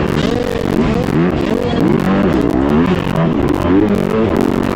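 Motocross bike engine heard from an onboard camera, revving up and falling back over and over as the rider works the throttle around the dirt track, over a steady rush of noise.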